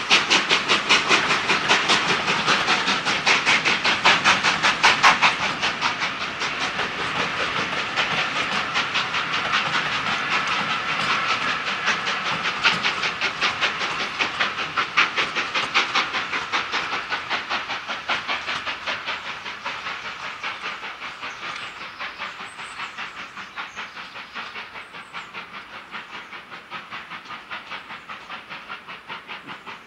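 Steam locomotive hauling a train of coaches, its exhaust beating in a fast, even rhythm with the clatter of the coaches' wheels. The sound fades steadily as the train draws away.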